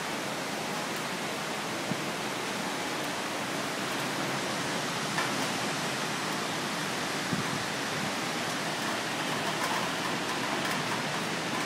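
Heavy rain downpour: a steady, even rush of rainfall with a few faint ticks.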